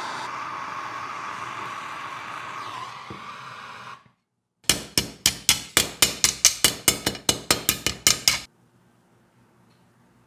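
A steady hiss for about four seconds, then a brief gap and a rapid run of about twenty hammer blows on the steel blade of a Joseon sickle laid on a small anvil, sharp metal-on-metal strikes at roughly five a second that stop a little before the end.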